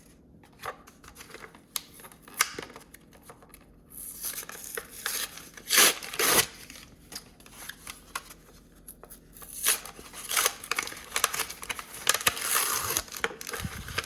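Trading-card packaging being torn open and crinkled: plastic blister and foil pack wrappers, in irregular rustling, tearing bursts with scattered clicks.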